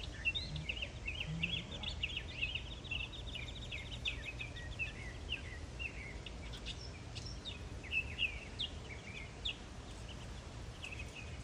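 A flock of whistling ducks calling with many short, high chirps and slurred whistles, densest in the first half and thinning out later, over a steady low rumble.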